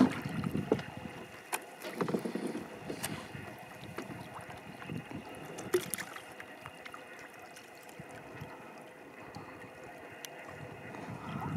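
Kayak paddling on sea water: the paddle dips and water splashes and drips in irregular short splashes and clicks, with quieter stretches between them.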